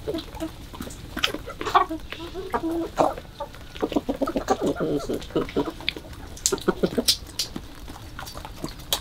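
Domestic chickens clucking in short, scattered calls as a mixed flock of hens and roosters feeds, with many sharp ticks of beaks pecking at the ground and feed bowls. The calls are busiest about halfway through.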